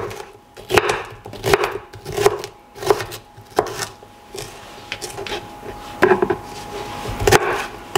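Knife slicing a red bell pepper on a cutting board: sharp knocks of the blade against the board about every three-quarters of a second, a short lull midway, then a few more cuts near the end.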